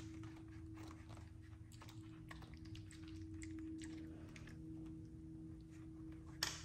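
Faint steady electrical hum at one pitch, with scattered soft clicks and small rustles and a sharper click near the end.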